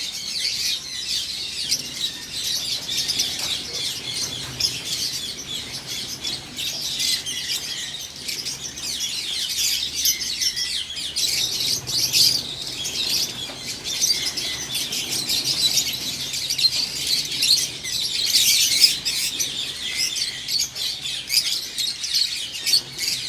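A large flock of lovebirds chattering without a break: many overlapping high chirps.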